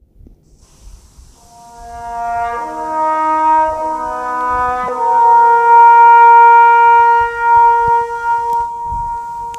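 Music: brass instruments come in one after another, building a held chord that grows louder, then thins out near the end.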